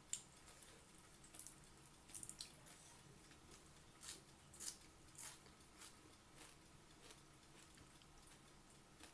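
Close-up mouth sounds of someone eating raw fresh dill: soft, wet clicks and smacks, scattered and mostly in the first half.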